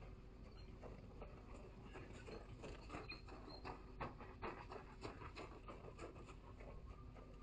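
Running footsteps crunching on snow, quick and uneven at about three a second, growing louder to a peak about four seconds in and then fading. A faint steady electrical hum runs underneath.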